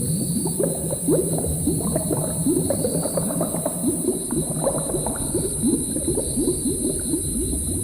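A cauldron of thick liquid bubbling and gurgling steadily, a dense run of quick bubble pops, over a steady high hiss.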